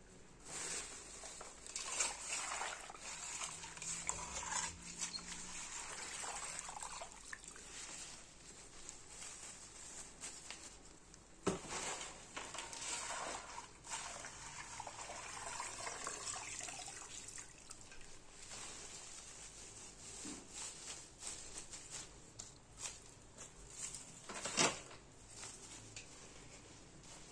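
Hands crumbling and rubbing coarse acorn flour in a wicker basket, then wet handling sounds from a metal bowl and the rustle of fresh leafy branches being spread over the basket. Two sharp knocks stand out, one about halfway through and a louder one near the end.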